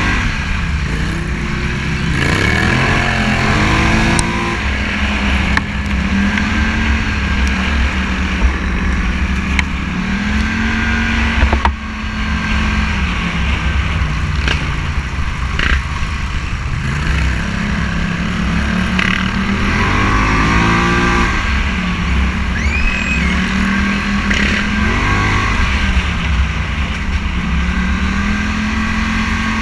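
Scrambler motorcycle engine running under way, its note rising and falling with the throttle, climbing steeply in a few hard revs, over a constant low wind rumble on the microphone.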